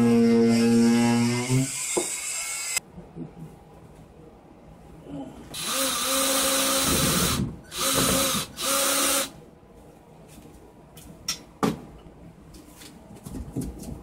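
A handheld power tool cutting sheetrock. It buzzes steadily and stops about two seconds in, then runs in three loud, grinding bursts a few seconds later. A few light knocks follow near the end.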